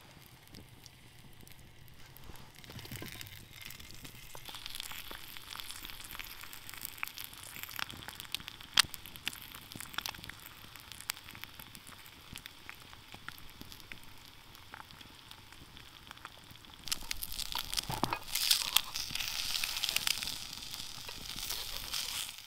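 Sausages and then an egg frying in a pan over campfire embers: a steady sizzle laced with sharp pops and crackles. The sizzle grows louder and fuller about seventeen seconds in.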